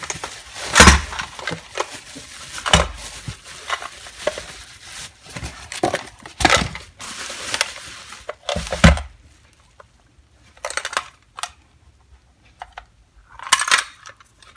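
Metal hand tools clinking and clattering as they are handled and set down, with several sharp knocks, the loudest about a second in, and lighter clinks between; quieter in the last few seconds apart from a short clatter near the end.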